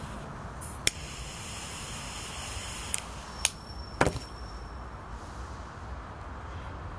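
Butane lighter clicking four times, the loudest click near the middle, with the hiss of its gas flame for a couple of seconds and a thin whistle of gas afterwards, as a cigar is lit. Steady traffic noise underneath.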